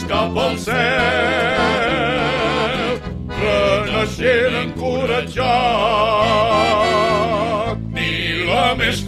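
A havanera song: a voice holding long notes with wide vibrato over instrumental accompaniment, in two phrases with short breaths about three seconds in and near the end.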